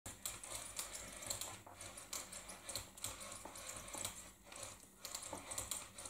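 Faint, irregular clicking and tapping, many small clicks with uneven gaps.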